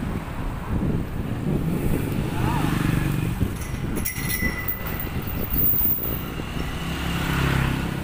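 Wind rumbling on the microphone of a camera riding on a moving bicycle, over street traffic, with a motorcycle engine sounding close by near the end.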